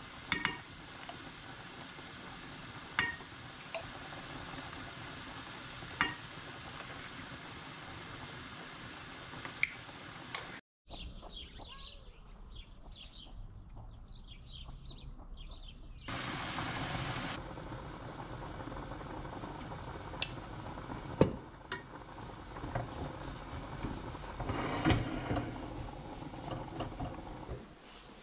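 Chopped onion and tomato frying in a stainless steel pan, a steady sizzle with a few taps of a wooden spoon against the pan. About eleven seconds in it gives way to a quieter stretch of repeated short high chirps, then to kitchen clatter with clinks and knocks.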